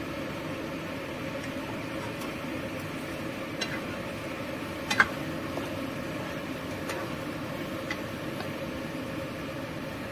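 Steady hiss and low hum of a frying pan of tofu, egg, tomato and spring onion cooking on the stove, with a few light clicks of a spatula against the pan as it is stirred; the sharpest click comes about five seconds in.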